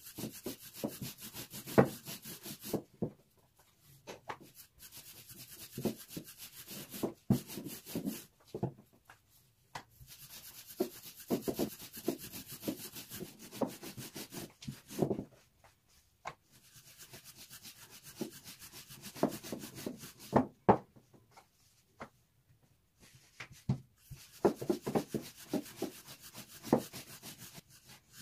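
Wooden rolling pin rolled back and forth over thin baklava dough sheets on a floured wooden table: a dry rubbing rumble in spells, with occasional sharp knocks and short pauses between spells.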